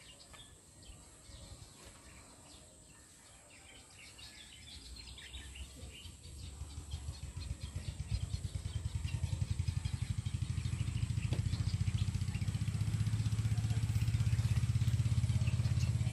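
A small engine comes closer, a low, fast-pulsing drone that grows louder from about five seconds in and then runs steadily. Faint bird chirps come before it.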